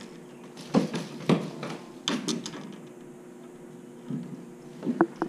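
A handful of scattered, irregular knocks and thumps from handling on a wooden dock, over a faint steady hum.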